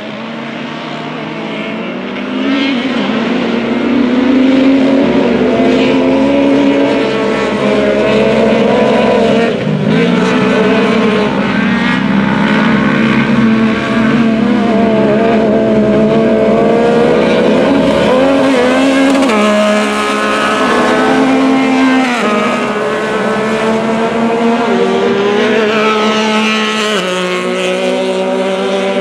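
A pack of side-by-side UTV race cars running on a dirt short course, several engines overlapping and revving up and down through the corners. It grows louder over the first few seconds as the pack comes closer, then stays loud.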